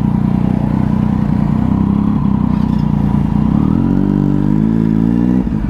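Triumph 675 inline three-cylinder engine with an aftermarket exhaust, running at low revs and then accelerating, its pitch rising from about three and a half seconds in before dropping off sharply near the end.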